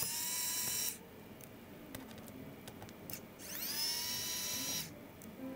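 Electric precision screwdriver whirring in two short runs, backing out the T5 Torx screws of a laptop's bottom panel. The first run stops about a second in. The second starts near the middle and lasts about a second and a half, its whine rising in pitch as the motor spins up. Faint small clicks come between the runs.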